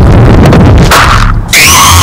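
Cartoon bunny's eating sounds, bass-boosted until they distort into a dense, heavy low rumble. About one and a half seconds in, a loud, distorted held tone of several pitches cuts in.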